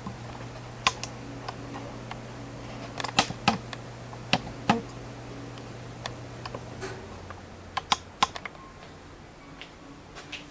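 Scattered light clicks and taps of small lamp parts being handled and set in place on a workbench, over a faint steady hum that stops about seven seconds in.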